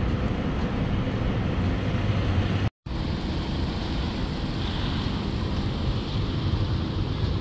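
City street traffic noise: cars driving past a signalled intersection, a steady low rumble, broken by a split-second dropout about three seconds in.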